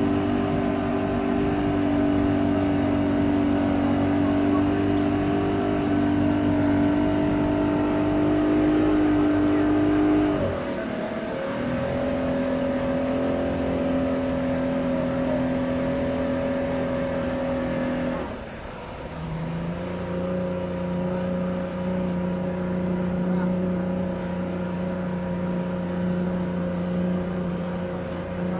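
Motorboat engine running steadily under load while towing, with the rush of its wake. The engine note drops about ten seconds in and shifts again around eighteen seconds, after a brief dip in level, as the throttle is eased and reset.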